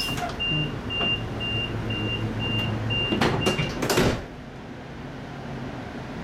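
Train door warning beeping, a high electronic tone about twice a second, over a low hum. The door slides shut with a loud rush and thump about four seconds in, leaving the steady quieter rumble of the railway carriage.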